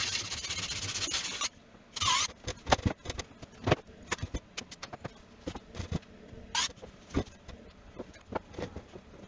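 Cordless drill driving a screw through a flexible shaft extension: one run of about a second and a half, then two short bursts about 2 and 6.5 seconds in. Scattered knocks and clicks of tools and parts being handled come in between.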